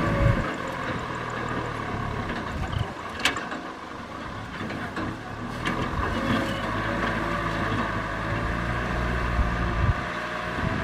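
Kubota M6040SU tractor's diesel engine running steadily while working a wet paddy field, with one sharp click about three seconds in.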